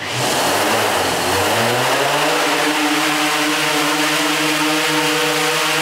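DJI Inspire 1 quadcopter's four motors and 13-inch propellers spinning up for takeoff, the pitch rising over the first couple of seconds as it lifts off, then holding steady as it hovers.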